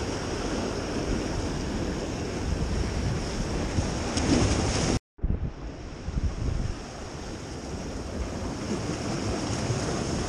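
Sea surf washing against a rock jetty, with wind rumbling on the microphone. The sound drops out completely for a moment about halfway through, then the surf carries on a little quieter.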